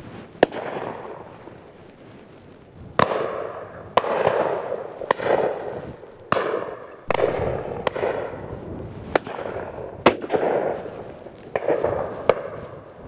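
Shotguns firing along a line of guns at driven pheasants: about a dozen shots at irregular intervals, some close and some farther off, each with an echoing tail.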